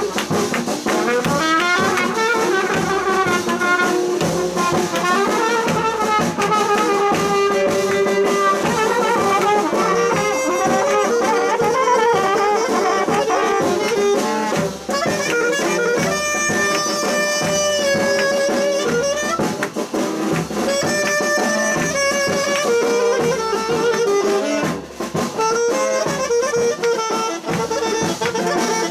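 Trumpet playing an ornamented, sliding dance melody close by, over a steady beat.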